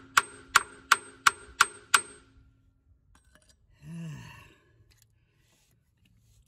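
Claw hammer tapping at a seized, rounded-off oil drain plug on a garden tractor's oil pan to break it loose: six sharp metallic strikes, about three a second, each with a short ring, stopping about two seconds in. A short sigh follows near the middle.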